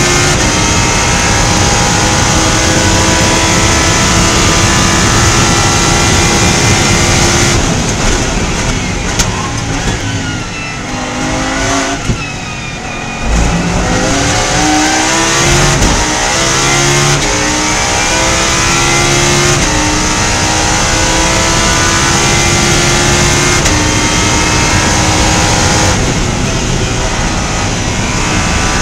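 Lamborghini Huracán Super Trofeo EVO2's V10 engine heard from inside the cockpit, held flat out in fifth gear. About seven seconds in the driver lifts and brakes hard, and a run of downshifts follows, each with a brief blip of revs, down to second. Then the engine pulls hard back up through the gears, its pitch climbing and stepping down at each upshift.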